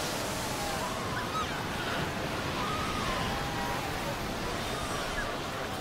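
Surf breaking and washing steadily over a packed colony of Cape fur seal pups, with faint wavering pup calls heard through the water noise.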